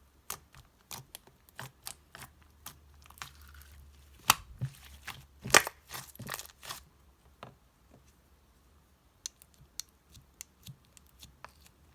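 White slime being kneaded with clay mixed in, making irregular sticky clicks and small pops. There are two louder snaps about four and five and a half seconds in, and the clicks grow sparser in the second half.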